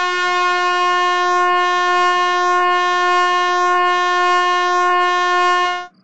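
Handheld canned air horn sounding one long, steady blast on a single note, cutting off abruptly near the end.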